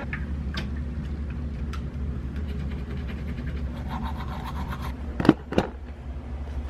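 Toothbrush scrubbing teeth, faint scratchy strokes over a steady low hum, with two sharp knocks a little past five seconds in.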